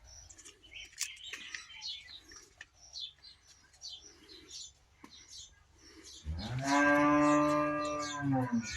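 Small birds chirping, then about six seconds in a cow moos in one long, loud call lasting over two seconds.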